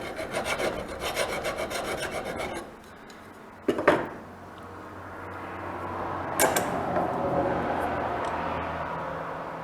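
Hand file stroking quickly across a small bushing held in a vise, about five strokes a second for nearly three seconds. A sharp knock follows near four seconds in, and another clack about six and a half seconds in, followed by a faint steady hum.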